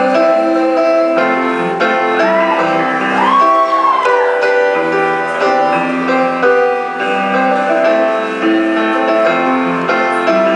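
Solo piano playing the instrumental interlude between verses of a slow pop-country ballad, with sustained chords under a simple melody.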